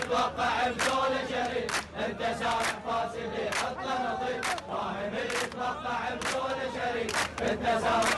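A crowd of men chanting a protest song in unison, with sharp handclaps in time at about one clap a second.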